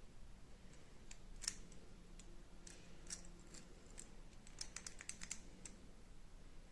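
Faint, irregular light clicks and ticks of small hard objects being handled, the most distinct about a second and a half in, with a quick run of clicks near the end.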